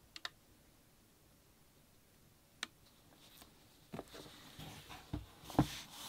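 Packaging and box being handled by hand: two quick clicks at the start and a single click a little later, then rustling with a few soft knocks over the last two seconds, the loudest knock near the end.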